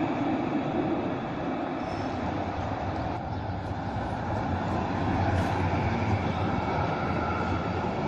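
Simmering-Graz-Pauker (SGP) tram running past on street track: a steady rumble of wheels on the rails and running gear, with a low hum underneath.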